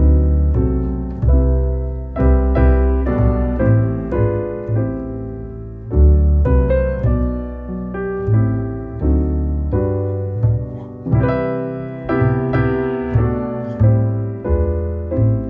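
Background piano music: a gentle piece of struck chords and melody notes that ring and fade, over deep bass notes.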